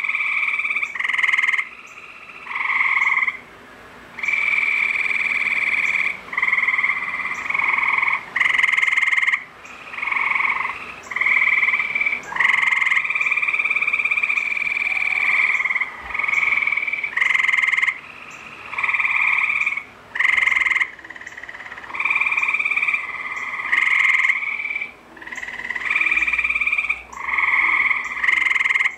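A chorus of tree frogs calling: loud, repeated calls of about half a second to two seconds each, one after another and overlapping, with only short gaps between.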